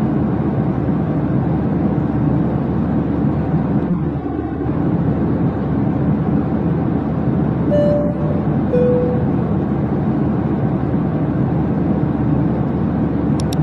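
Steady low rumbling drone without breaks, with two short faint tones about eight and nine seconds in.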